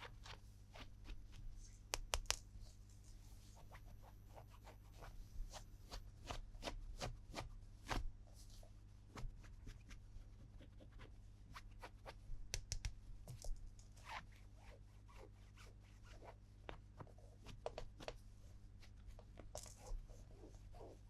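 Hands handling plastic toy pieces and packaging: scattered small clicks, taps and rustles over a faint steady low hum.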